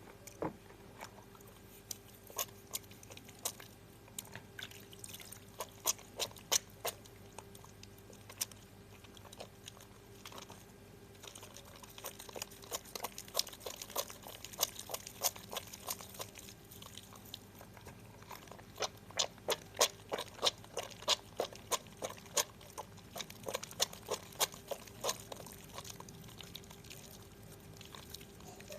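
Harmoni lemon bar soap being worked into a lather: a long run of small wet clicks and squelches, several a second, coming in busier spells in the middle and toward the end.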